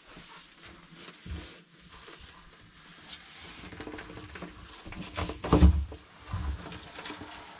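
Irregular knocks, bumps and rustling as a boa constrictor strikes and wraps its coils around a whole chicken held on feeding tongs. The loudest is a deep thud about five and a half seconds in.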